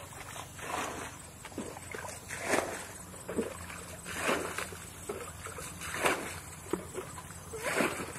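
Splashing and sloshing in shallow muddy water, in irregular bursts about once a second, over a low steady hum.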